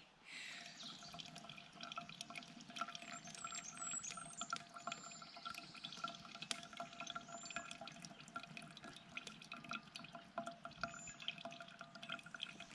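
Brewed coffee poured into a stainless steel mesh pour-over filter cone, trickling and dripping through into the bottle below, faintly.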